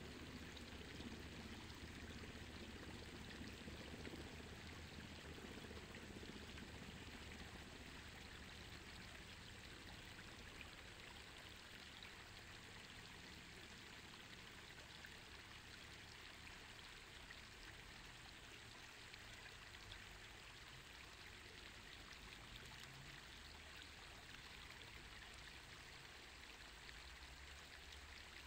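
Faint, steady trickle and rush of shallow stream water flowing.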